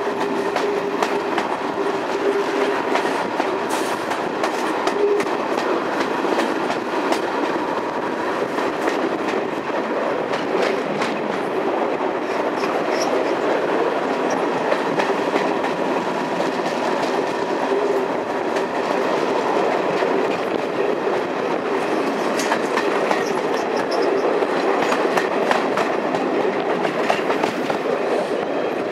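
Train running along the track: a steady rumble of wheels on rail with frequent sharp clicks as the wheels pass over rail joints, under a faint steady whine.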